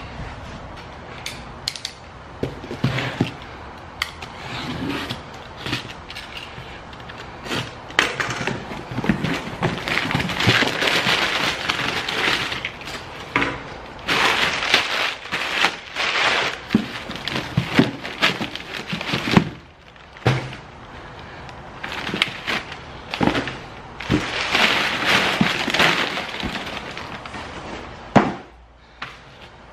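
Crumpled brown kraft packing paper crackling and rustling as it is pulled out of a cardboard box, in several loud bouts, with the cardboard box and its contents being handled.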